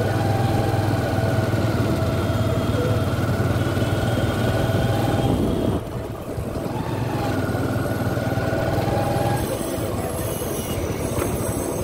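Motorcycle engine running steadily as the bike rolls slowly along, with a steady low hum and a held whine; the engine eases off briefly about six seconds in, then picks up again.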